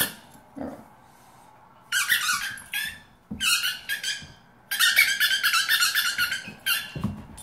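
Rubber squeaky toy ball squeaked in short bursts, ending in a long run of quick squeaks from about five to seven seconds in.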